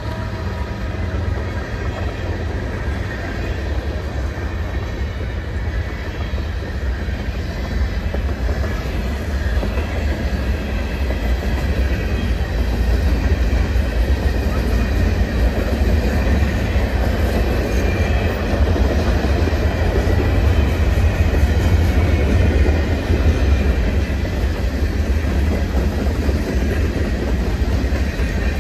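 Empty covered grain hopper cars of a freight train rolling past: a steady rumble of steel wheels on the rails that grows a little louder after about ten seconds.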